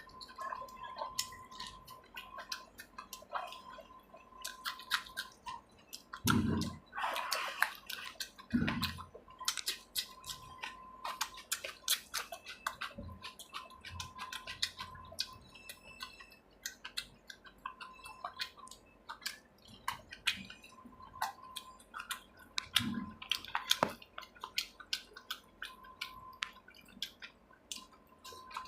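A person chewing food close to the microphone, with many wet mouth clicks and smacks and a few louder, duller thuds.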